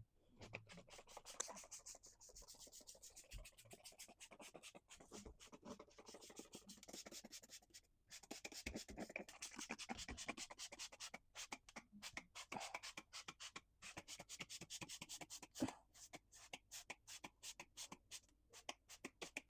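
Hand-held plastic trigger spray bottle misting vinegar onto baking soda paste inside an oven: faint, rapid, repeated squirts, several a second, with brief pauses between runs.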